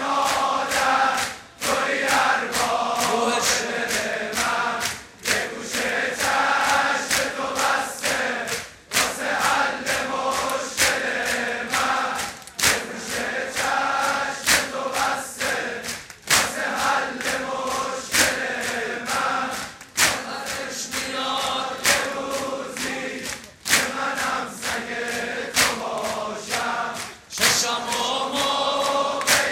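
A large crowd of men chanting a mourning refrain in unison for sineh-zani (ritual chest-beating), phrase after phrase with a short break about every three and a half seconds. Sharp slaps of hands on bare chests keep a steady beat under the voices.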